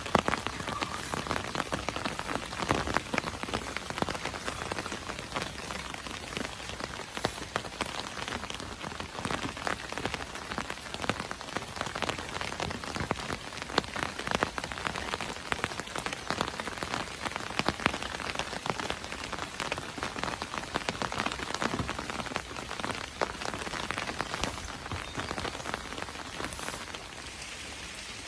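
Steady rain falling on a surface, with a dense patter of individual raindrops ticking sharply and a few louder drops standing out.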